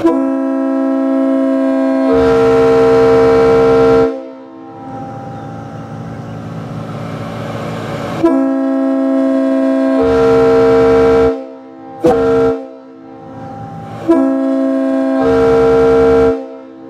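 Multi-chime locomotive air horn blown on compressed air, sounding a steady chord in three long, loud blasts, with a higher note joining about two seconds into each and the chord carrying on more softly between the blasts. A short toot comes about twelve seconds in.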